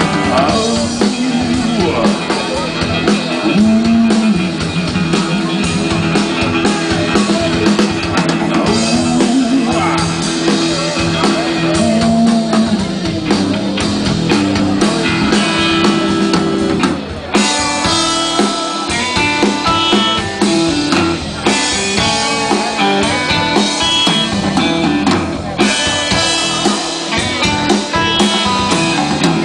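Live blues-rock band playing loudly: electric guitars over a drum kit, with the guitar lines getting busier and brighter about two-thirds of the way through.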